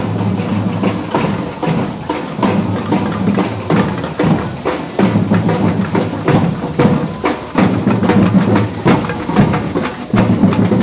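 A band playing in the street: a regular drum beat over low sustained notes.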